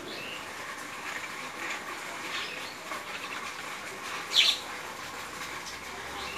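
Mynas calling with short chirps, one loud harsh call about four seconds in, over a steady background hiss.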